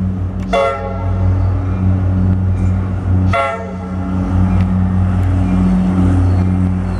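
Diesel passenger locomotive's horn sounding two short blasts, about three seconds apart, over the steady low drone of its diesel engine as the train approaches.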